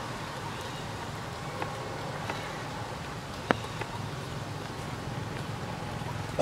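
Steady outdoor background rumble and hiss, like distant traffic, with a few sharp clicks. The loudest click comes about three and a half seconds in.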